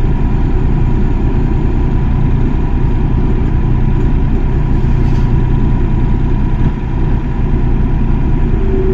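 Excavator's diesel engine running steadily, with a thin steady whine above the engine note. The level dips briefly about seven seconds in.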